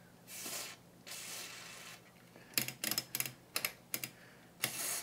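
DeoxIT D5 contact cleaner hissing from an aerosol can through its straw into a rotary selector switch in two short sprays, then a quick run of sharp clicks as the switch is worked, and a third brief spray near the end.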